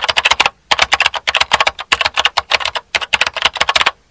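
Rapid typing keystrokes: a quick run of sharp clicks, broken by a short pause about half a second in and brief gaps later on.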